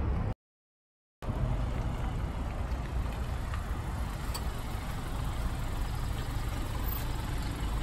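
A Honda sedan's engine running low and steady as the car creeps up slowly. The sound drops out completely for under a second near the start.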